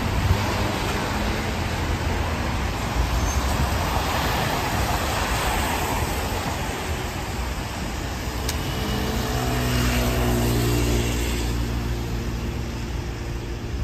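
Road traffic on a rain-wet city street, with tyre hiss from a vehicle passing about five seconds in. From about eight seconds in, a vehicle engine hums steadily, loudest around ten to eleven seconds in.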